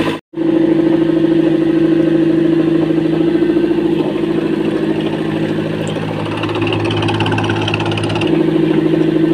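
Komatsu diesel engine running steadily, its sound cut out for a moment just after the start. From about four seconds in to about eight seconds in, its note deepens and some hiss is added, then it settles back.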